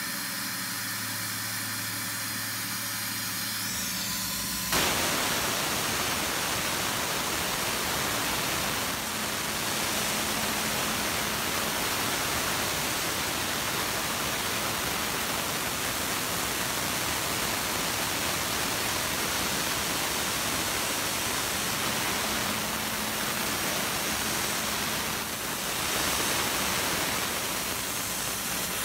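Tormach PCNC 770 CNC mill cutting a clamp recess in an aluminium pallet with an end mill. At first the spindle runs with a few steady tones, then about five seconds in a loud, steady rushing hiss of coolant spray starts suddenly and runs on over the cut.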